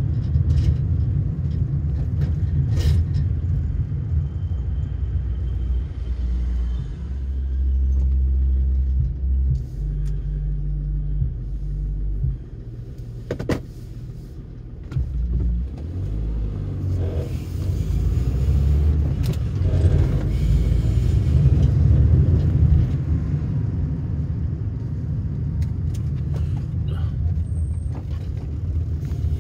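A car driving, heard from inside: a low engine and road rumble that rises and falls and drops quieter for a few seconds around the middle, with a few brief clicks.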